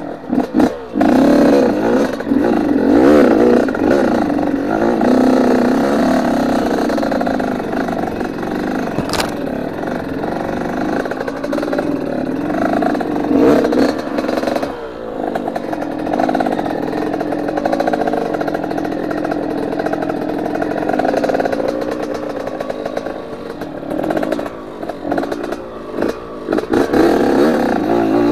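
Trail motorcycle engine revving and pulling under load, its pitch rising and falling over and over, with a few short dips in level.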